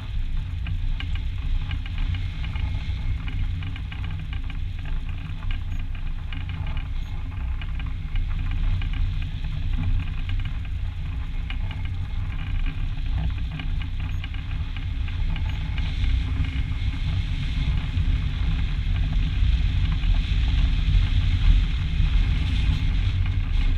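Wind rushing over the microphone of a wing-mounted action camera on a hang glider in flight: a steady, rough low rumble of buffeting air, growing somewhat louder in the last few seconds.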